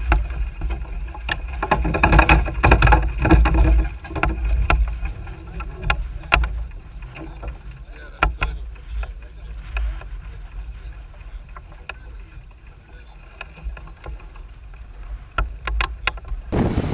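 Small sailboat under way, heard from the cockpit: a steady low rumble of wind and water with frequent sharp clicks and knocks.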